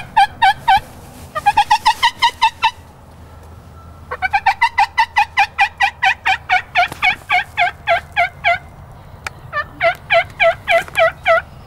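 Turkey yelping: runs of short, evenly spaced yelps, about five a second, in four strings broken by short pauses, the longest lasting about four seconds.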